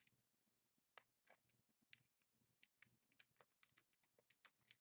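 Near silence with faint, irregular ticks and soft rustles of trading cards being handled and flipped through by hand.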